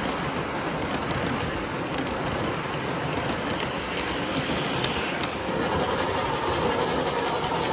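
Model Western Maryland M2 Challenger steam locomotive running on layout track: a steady rumble of wheels and drive with faint clicks, and a steadier hum coming in after about five seconds.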